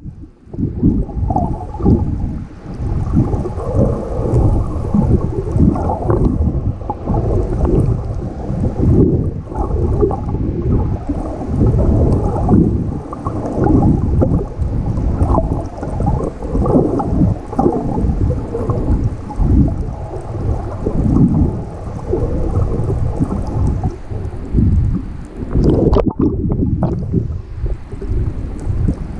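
Muffled underwater sound through an action camera's waterproof housing: water churning and gurgling around the camera in a deep rumble that swells and fades constantly.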